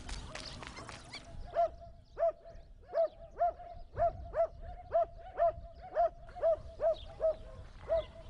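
A dog barking over and over at an even pace, about two barks a second, starting about a second and a half in.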